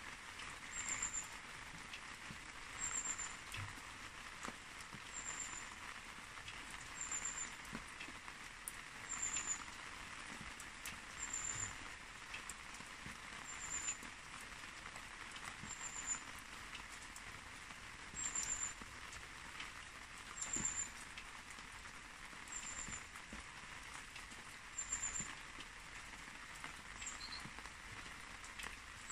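A short, very high-pitched chirp of two or three quick notes, repeating about every two seconds, from a small animal calling, over a steady soft hiss.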